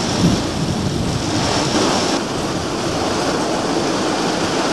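Heavy thunderstorm rain, a steady loud rushing downpour. A higher hiss in it drops away a little over two seconds in.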